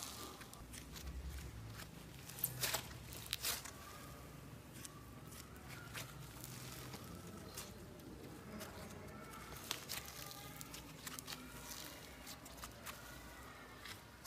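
Slime being worked by hand: scattered sticky clicks and pops, the loudest a few seconds in.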